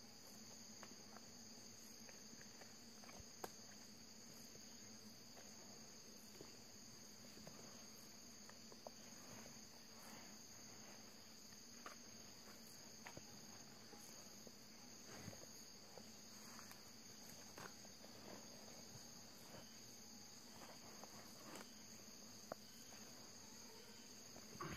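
Faint, steady high-pitched trilling of insects, with scattered faint ticks and rustles from gloved hands handling a wasp comb on dry leaves.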